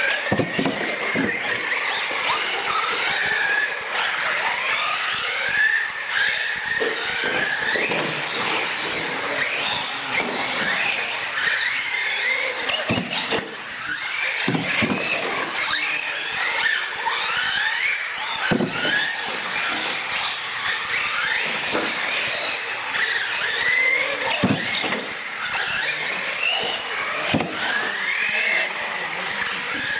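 Several radio-controlled UTVs racing, their electric motors making overlapping high whines that rise and fall over and over as they speed up and slow down. Short tyre squeals and knocks come from the tyres on the smooth concrete floor.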